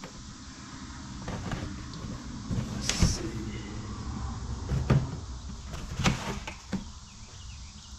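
A large cardboard box being handled and slid across a wooden tabletop, with scraping and several sharp knocks, as its factory seal strip is pulled off.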